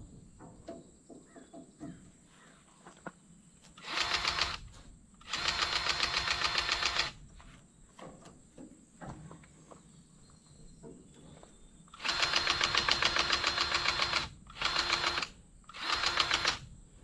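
Powered grease gun's pump motor running in five bursts, each a rapid steady pulsing, as it pushes grease into a grease fitting.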